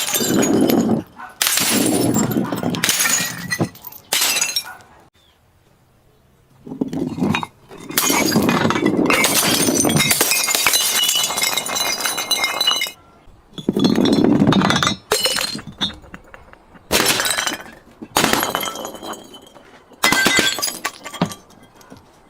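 Glass bottles being smashed and crushed: a run of crunching breaks with clinking, ringing shards, in bursts separated by short pauses, the longest about five seconds in.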